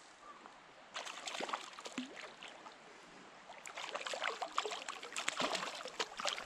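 Small hooked brown trout splashing and thrashing at the water's surface as it is played in toward a landing net. The splashes are irregular, starting about a second in and becoming more frequent in the second half.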